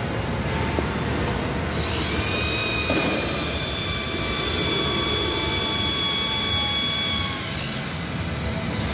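Cordless drill with its bit against a floor panel: the motor whines up to speed about two seconds in, runs at one steady pitch for about five seconds, then winds down near the end.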